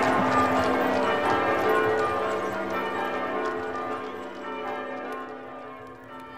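Church bells pealing together with horses' hooves clip-clopping, the whole slowly fading away.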